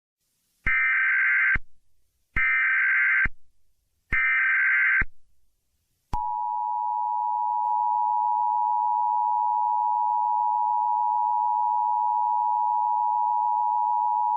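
Emergency Alert System alert opening: three short bursts of SAME digital header data, each about a second long and a little over a second apart, then, about six seconds in, the EAS two-tone attention signal, a steady dual tone.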